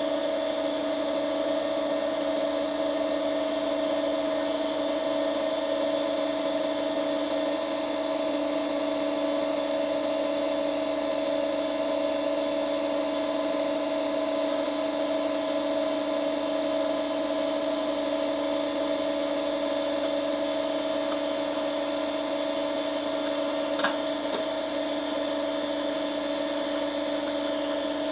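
Electric motor of a tool with a cutting wheel running steadily with an even hum, with a single brief click near the end.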